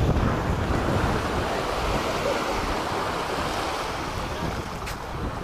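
Wind buffeting the microphone over small sea waves washing onto the beach, louder at first and easing off.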